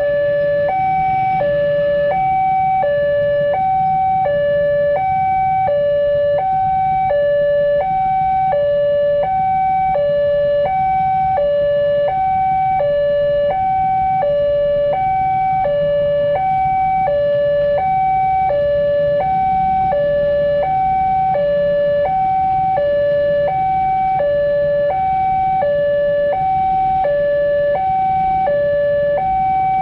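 Railway level-crossing warning alarm sounding continuously, alternating evenly between a higher and a lower tone, signalling that a train is approaching and the barriers are closing or closed. A low hum runs beneath it.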